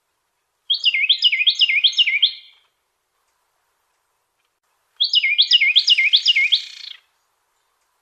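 Carolina wren singing two songs, each a rapid run of about five repeated rolling whistled phrases lasting about two seconds. The second song starts about five seconds in.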